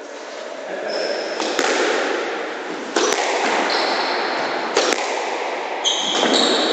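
Squash rally on a reverberant court: the ball cracks off racket and wall three times, about a second and a half apart, with short high squeaks of court shoes on the wooden floor in between.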